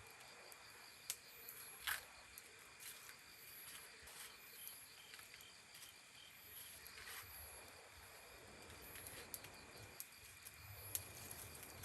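Insects, crickets among them, chirring steadily and faintly, with a run of short even chirps in the middle and a few sharp clicks scattered through.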